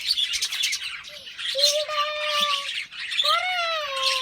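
A flock of small caged pet birds chirping and chattering continuously. Two longer drawn-out calls stand out, the second falling slowly in pitch.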